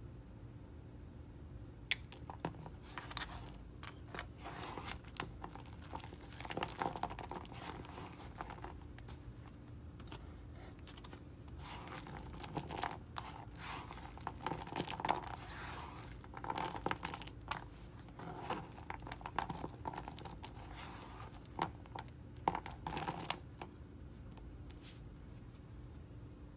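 Snap-off utility knife blade cutting thin, crunchy clear soap, then a handful of the brittle soap shavings squeezed and rubbed between the hands: crisp crackling and crunching in several spells, with sharp snaps.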